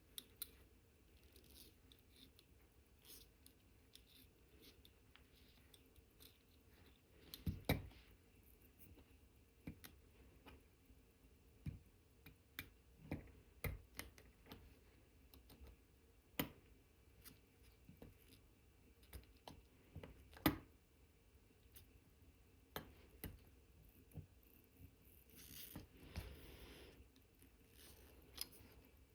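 Faint, scattered clicks and taps of small watchmaker's tools against the parts of an Omega Cal.1109 movement being reassembled, with a few sharper clicks and a brief rustle near the end.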